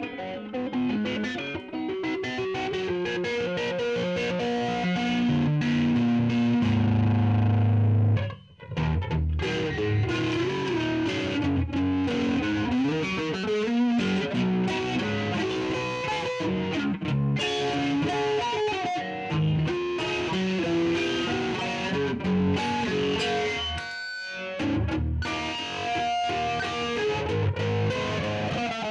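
Electric guitar played through a Donner Jet Convolution Flanger pedal with some distortion: continuous riffs and chords, breaking off briefly twice.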